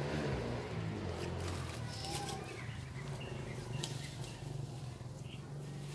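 Woodland ambience: a few short bird calls over a steady low hum, with scattered light clicks and rustles.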